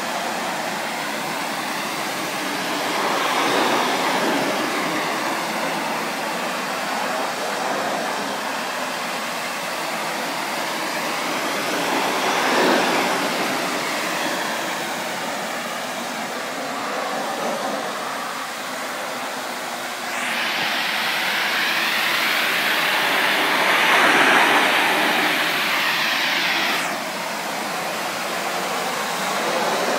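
Pressure-washer jet spraying onto wooden deck boards: a steady hiss that swells and fades as the nozzle sweeps. About two-thirds in it turns brighter and louder for several seconds, then drops back suddenly.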